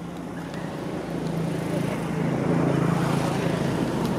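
Steady low hum of a motor under a rushing background noise, getting louder over a few seconds.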